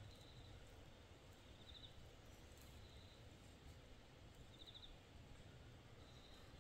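Near silence: faint outdoor ambience with a low rumble and a short, high pulsed chirp from a small animal repeating about every three seconds.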